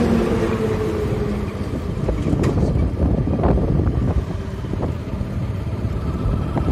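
Wind buffeting the microphone over the low running of a motorbike engine on the move, with scattered short knocks.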